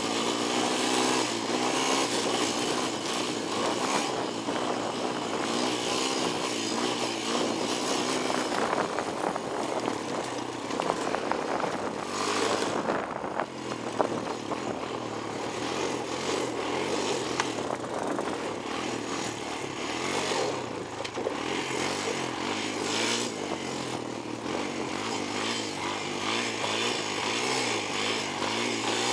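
Honda 250EX ATV's single-cylinder four-stroke engine running under way, its revs rising and falling, over a steady rush of wind and gravel noise. The revs drop briefly about twelve seconds in and again around twenty seconds.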